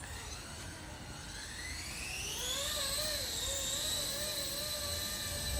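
Electric RC helicopter's brushless motor spooling up the rotor: a whine that rises in pitch from about a second in until about three seconds, then holds at speed with a slight wavering.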